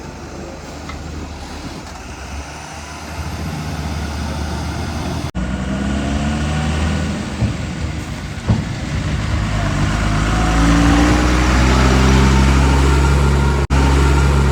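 Heavy-vehicle diesel engine running, then revving up with a rising pitch and growing louder from about five seconds in, held high near the end. Two brief sudden dropouts break the sound.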